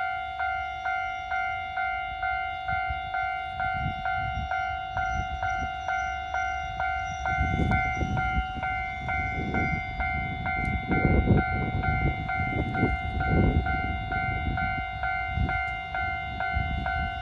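Japanese level crossing warning bell ringing steadily, about two strikes a second. A Kotoden two-car train runs over the crossing with a low rumble and wheel thumps, building from about four seconds in and loudest in the middle.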